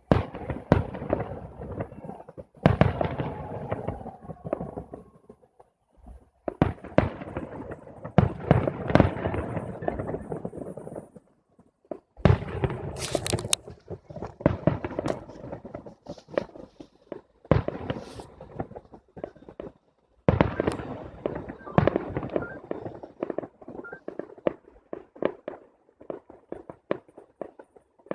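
Fireworks salute: a series of loud bangs from shells bursting every couple of seconds, each trailing off in a rumble. Near the end comes a rapid crackle of many small pops.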